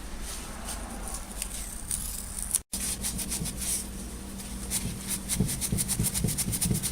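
Dry scratching and rubbing of hand work on the vise, a series of quick small scrapes that grows into a fast run in the second half.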